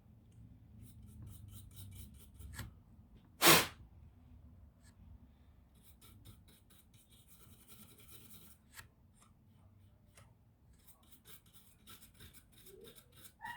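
Small clicks and scraping of hands and tools working on a laptop's parts, with one sharp knock or snap about three and a half seconds in.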